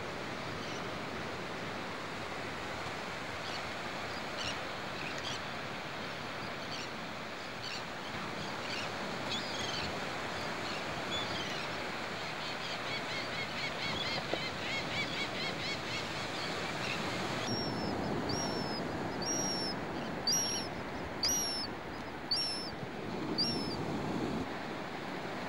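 Surf washing steadily onto a sandy beach, with birds calling over it: scattered chirps at first, a fast chattering run in the middle, then near the end a series of about seven short, high calls that drop in pitch, each under a second apart.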